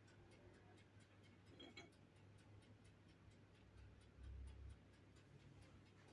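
Near silence: faint, even ticking over a low hum, with a soft low thump about four seconds in.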